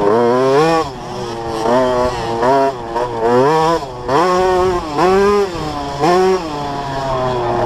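2007 KTM 65 SX's small two-stroke engine under hard riding, revving up and falling back about once a second as the throttle is worked.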